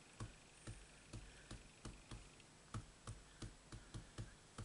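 Sponge dauber dabbing ink onto cardstock: faint, short taps, about three a second.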